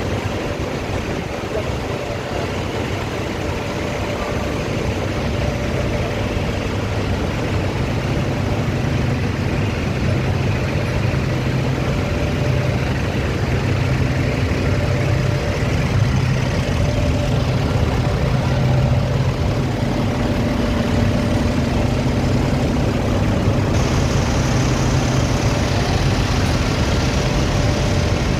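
Wall-mounted fine-mesh fans running: a steady whoosh of moving air over a low motor hum.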